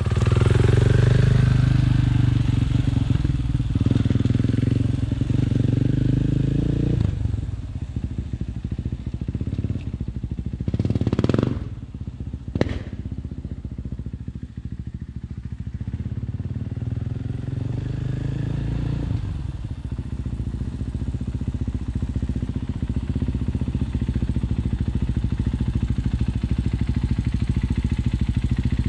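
KTM motorcycle engine running hard at high revs for about seven seconds, then easing off. It surges briefly around eleven seconds, runs steadier at lower revs, and picks up again around nineteen seconds.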